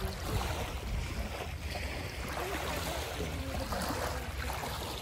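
Small waves lapping at the water's edge, with wind rumbling on the microphone.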